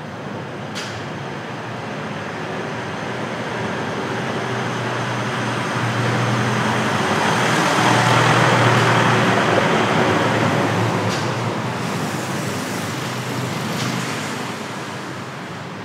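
A motor vehicle drives past, its engine and tyre noise growing steadily louder to a peak about halfway through and then fading away.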